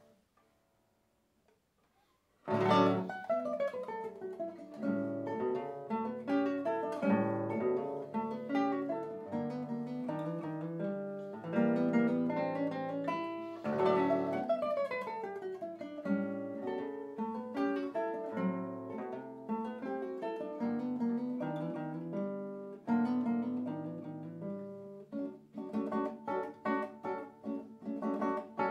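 Two nylon-string classical guitars playing a duet together. The music comes in with a loud chord about two and a half seconds in, after a short silence, and runs on with a busy weave of plucked notes and chords.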